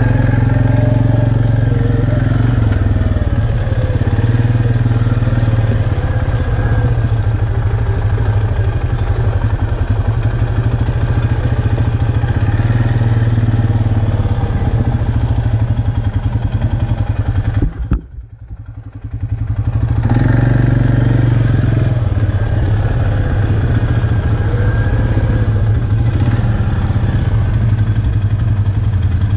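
Can-Am Outlander XMR 570 ATV's V-twin engine running steadily at low revs as it crawls along the trail, with small rises in pitch. The sound briefly drops away about two-thirds of the way through, then comes back.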